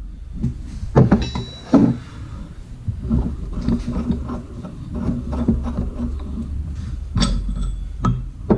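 Metal knocks and clanks from working a ball joint press, pressing a new ball joint into a steel upper control arm, one knock followed by a brief ringing, over a steady low hum.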